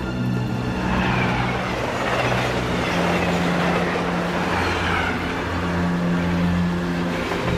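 Dark, tense drama score with low held notes. Over it, a rushing noise swells about a second in, with faint falling pitches, and fades over the next few seconds.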